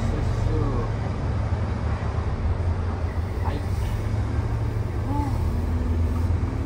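Cab interior of a new Mitsubishi Fuso Super Great heavy truck: the diesel engine's steady low rumble as the truck drives off the ferry deck onto the quay.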